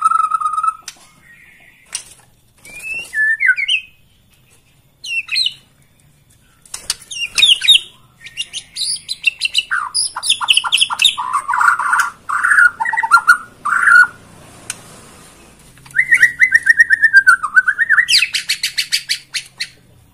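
White-rumped shama singing: a varied run of whistled phrases, rising and falling notes and quick trills, with short pauses between phrases and a long, fast rattling series near the end.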